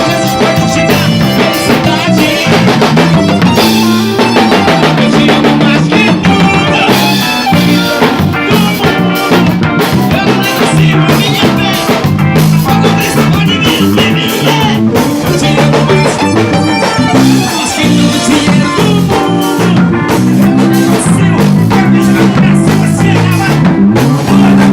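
Gospel band playing live with a drum kit, bass and guitar, a steady beat throughout.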